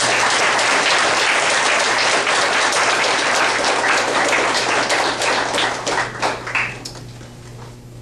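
Audience applauding, a dense patter of many hands clapping that dies away about seven seconds in, over a steady low electrical hum.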